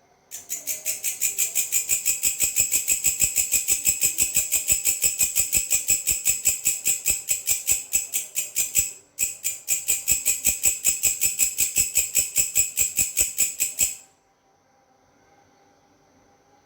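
A belalang (grasshopper-type insect) stridulating: a fast train of high-pitched chirping pulses, about five or six a second, with a brief break about nine seconds in, stopping a few seconds before the end.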